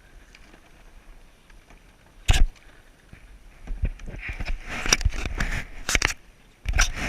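Knocks and clattering in a canoe: one loud sharp knock about two seconds in, then a run of knocks mixed with rustling, splashing noise, and a few more knocks near the end.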